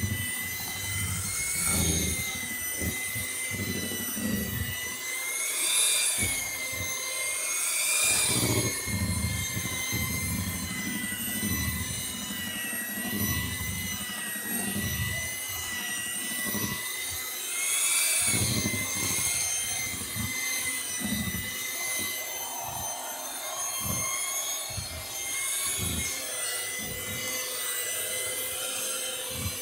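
Electric hand mixer running steadily, its beaters churning a thick banana bread batter; the motor's whine rises briefly a few times as the load on the beaters changes, with irregular low knocks and bumps underneath.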